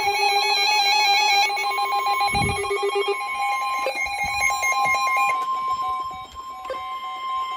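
Emergency Alert System tones ahead of a new severe thunderstorm warning: a warbling, rapidly stepping digital data burst, then a steady single tone from about three seconds in.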